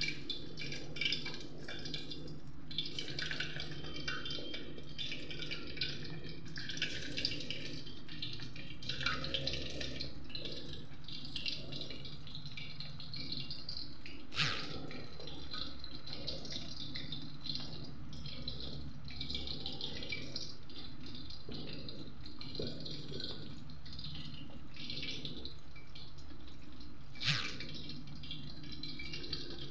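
Chicken pieces frying in hot cooking oil, an uneven sizzle and crackle over a steady low hum. Two sharp knocks come through, one about halfway through and one near the end.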